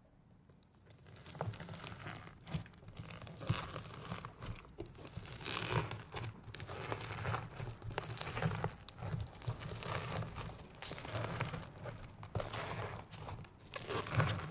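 Fingers pressing and squishing a crunchy slime packed with foam beads and chunks, giving a dense, continuous run of small crackles and crunches.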